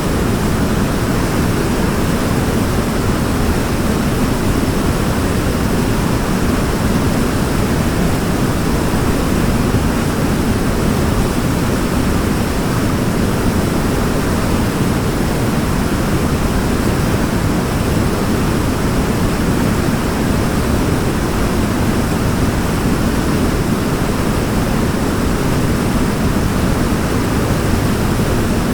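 Waterfall rushing steadily, an even, unbroken roar of falling water with most of its weight in the low end.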